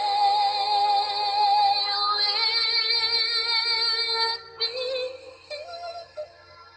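A woman's voice singing a long held note with vibrato for about four seconds, then breaking into a few shorter notes that fade out before the end.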